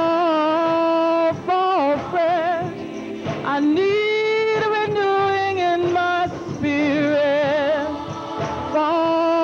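Women's gospel choir singing, holding long notes, some with a wide vibrato and a few sliding between pitches.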